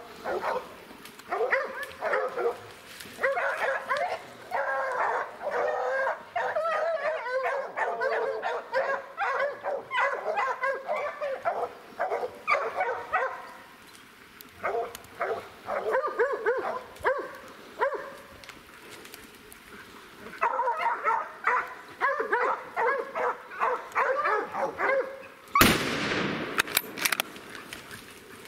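A pack of bear hounds baying and barking in bursts at a treed or bayed black bear. Near the end a single loud gunshot cracks out, the shot that drops the bear.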